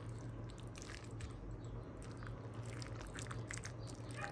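Silicone spatula stirring grated carrots into thick yogurt in a bowl: faint wet squelching with small scattered scraping clicks.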